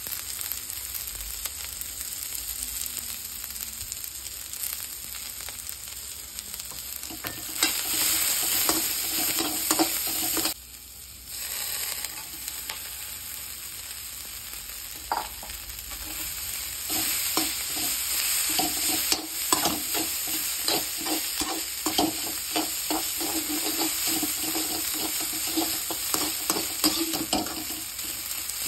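Onions, green capsicum and boiled noodles sizzling as they are stir-fried in a hot metal wok, with a slotted metal spatula scraping and clinking against the pan. The sizzle gets louder about seven seconds in and cuts out briefly around ten seconds. The spatula strokes come thick and fast through the second half.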